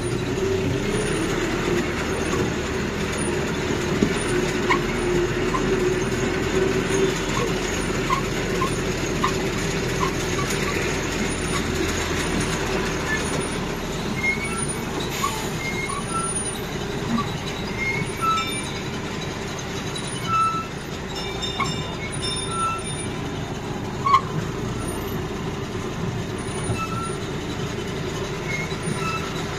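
Ride noise aboard a road-going tourist land train: the towing vehicle's engine drones steadily as the wagons roll along, with scattered short high squeaks and an occasional knock.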